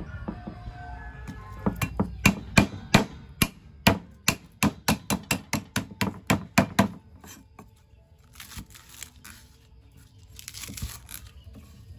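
Knife or cleaver chopping on a wooden cutting board: a quick run of about twenty sharp strokes over some five seconds, followed by softer scraping and rustling.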